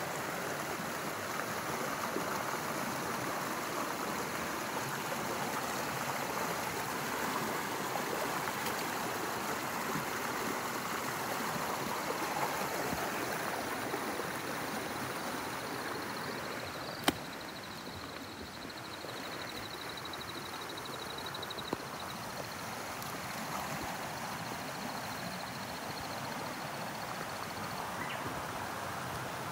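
Creek water running steadily after rain. A single sharp snap about halfway through, and a faint high-pitched trill through much of the second half.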